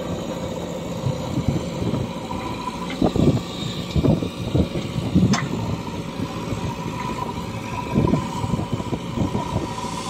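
JCB 3DX backhoe loader's diesel engine running, with irregular low rumbling swells over its steady sound.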